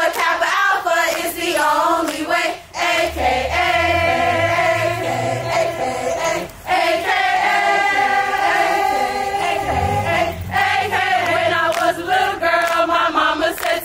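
A group of women singing together, holding long notes in unison, with a few sharp hand claps.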